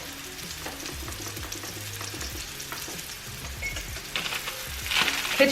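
Seasoned chicken frying in oil in a small pan, a steady sizzle, with a few faint clicks in the second half.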